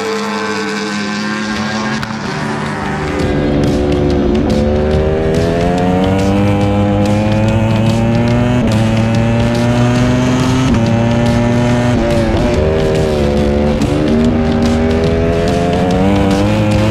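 Ducati Panigale V4 R WorldSBK superbike's V4 engine, heard onboard at racing speed: it pulls hard with the pitch climbing, with sharp upshifts about four, eight and ten and a half seconds in. It then drops through downshifts into a corner and pulls again near the end.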